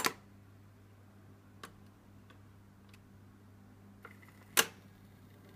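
Dansette Hi-Fi model 209 record player with a Garrard changer deck running, with a steady low hum through its speaker and a few soft mechanical ticks as the tone arm swings over the record. A sharp click about four and a half seconds in is the stylus coming down on the record.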